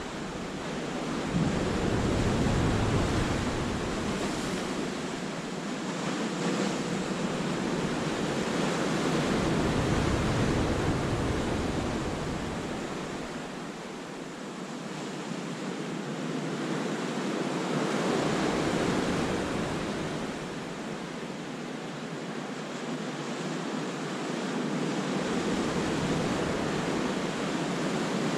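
Sea waves breaking and washing back over the rocks of a cove. The surf swells and eases about every eight seconds.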